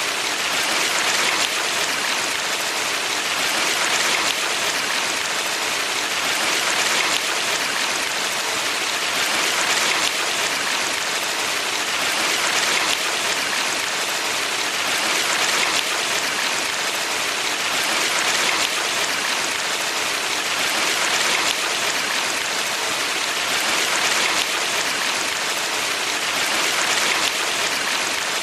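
Valley stream water rushing steadily: a dense, even hiss of flowing water that swells gently every few seconds.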